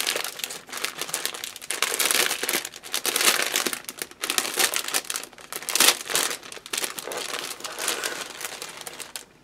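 Clear plastic bag crinkling as it is handled and pulled open, in uneven bursts of crackle that stop suddenly near the end.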